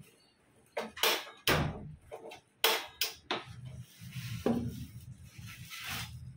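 A glass-top gas hob being handled in its cardboard box and styrofoam packing: a run of sharp knocks and scrapes in the first few seconds, then steadier rustling and shuffling as a hand works in the plastic bag of parts.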